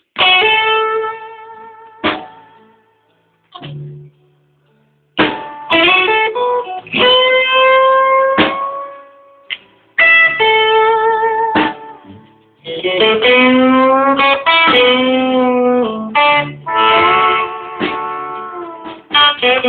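Electric guitar playing slow blues lead phrases of long, bent notes with vibrato, broken by short pauses.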